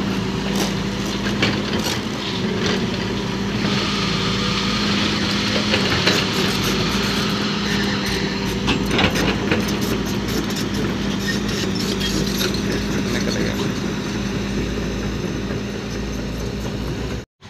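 Heavy diesel truck engine running steadily as it pulls a low-bed trailer heavily loaded with steel rebar over a rough dirt track, with intermittent rattles and knocks from the trailer and its load. The sound cuts off abruptly just before the end.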